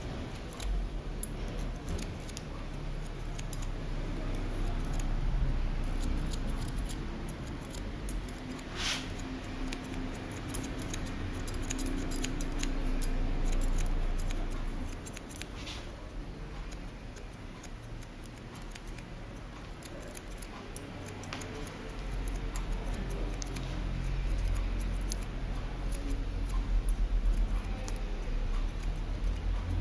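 Steel barber's scissors snipping short hair over a comb, a quick run of light metallic clicks of the blades closing, with a few sharper snips about nine and sixteen seconds in. A low rumble lies underneath.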